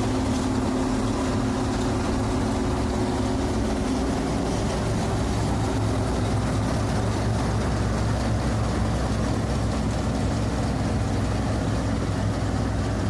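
Diesel farm machinery engines running steadily. A higher engine note fades out about a third of the way in, leaving a deeper, steady hum.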